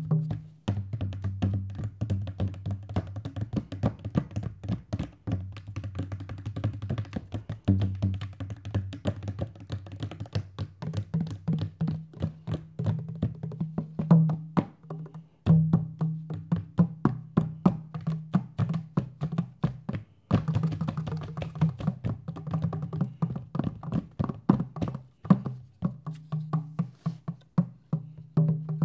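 Madal and tabla hand drums played in fast, dense strokes, with a low drum tone ringing under them that switches between two pitches. The playing breaks off briefly twice, about halfway through and again a few seconds later.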